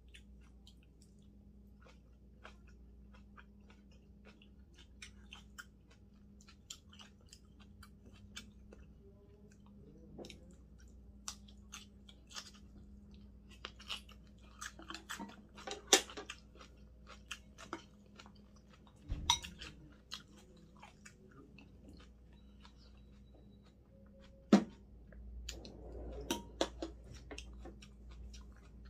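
A person chewing food close to the microphone, with many small wet clicks and a few sharp knocks of chopsticks and spoon against the dishes, the loudest near the end.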